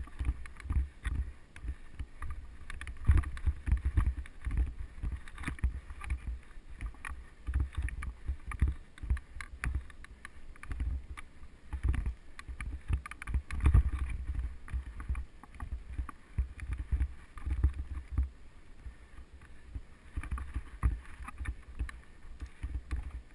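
Mountain bike ridden at speed over a dirt and sand forest track: wind buffets the action camera's microphone while the tyres roll over the ground, with frequent short rattles and knocks from the bike over bumps.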